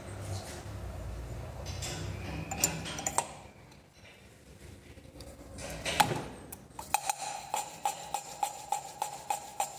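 Metal clinks from parts being handled on an AP engine cylinder head, a sharp knock about six seconds in, then a valve being hand-lapped into its seat with a suction-cup lapping stick: rhythmic scraping ticks about three a second with a ringing tone.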